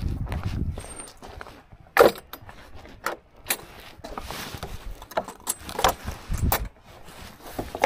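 Irregular clicks, knocks and jingles of someone walking down a stony path with clinking kit, over low rumble on the microphone. The loudest knock comes about two seconds in.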